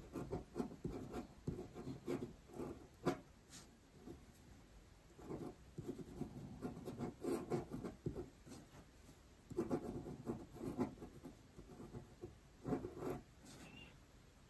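A pen writing by hand on paper: the tip scratching through quick clusters of short strokes, with brief pauses between characters.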